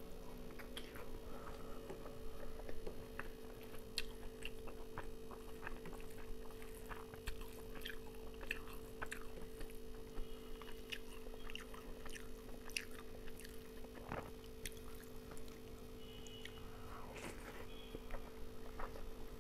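Close-up chewing and wet mouth clicks of a person eating rice and mutton curry by hand, with many short sharp smacks scattered throughout. A steady low hum runs underneath.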